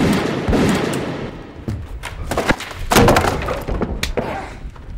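Crashing and breaking impacts from a staged fight: a loud crash right at the start that rings on, scattered knocks and thuds, then a second loud crash about three seconds in.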